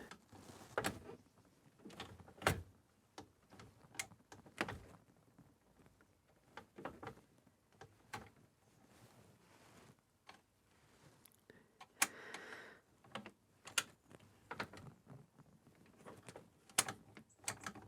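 Irregular light knocks and clicks of tools and metal parts being handled, about a dozen scattered taps with the sharpest a few seconds in and again after twelve seconds.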